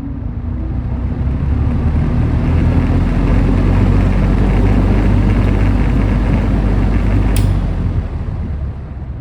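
Vintage Sears Homart metal box fan running on high speed: a steady rush of air with a low rumble from the motor, building over the first few seconds as the blades come up to speed. A single sharp click comes about seven seconds in, and the sound starts to ease after it.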